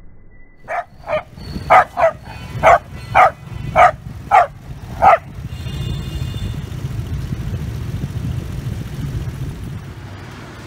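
A dog barking rapidly, about nine sharp barks in four seconds, followed by a steady low noise.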